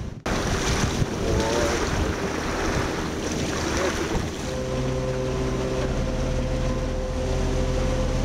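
Water rushing along the hull of a moving boat, with wind on the microphone. About four seconds in, this gives way to a steady hum with several constant tones from the boat's two TEMA SPM132 permanent-magnet electric drive motors running.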